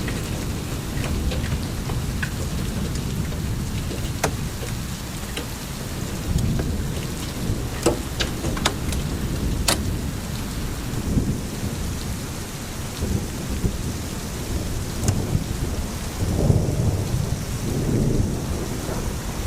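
Hailstorm in heavy wind: a steady low rumble of wind and rain that swells now and then, with a few sharp ticks of hailstones striking, the clearest about four, eight and ten seconds in.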